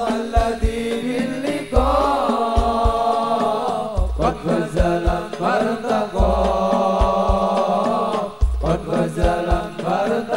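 Sholawat, Islamic devotional song, sung with long held notes over rebana frame-drum accompaniment, a deep drum stroke falling about every two seconds with lighter beats between.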